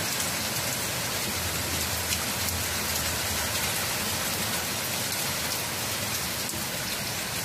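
Heavy rain pouring steadily, a dense even hiss with scattered drops hitting.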